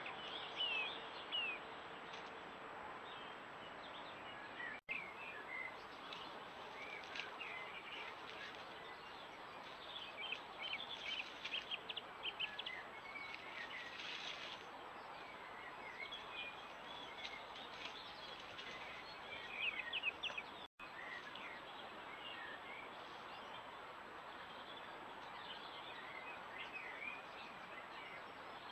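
Woodland birds singing, with many short chirps and quick trills scattered throughout over a steady background hiss. The sound cuts out for an instant twice.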